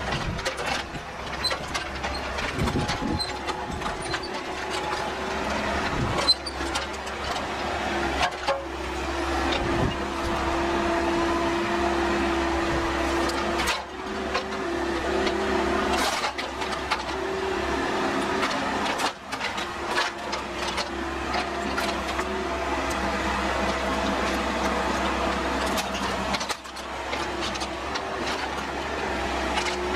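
Bobcat 331 compact excavator's diesel engine running steadily under hydraulic load, its pitch shifting a little as the arm works. Scattered sharp knocks and cracks of wall framing breaking as the house walls are pulled down.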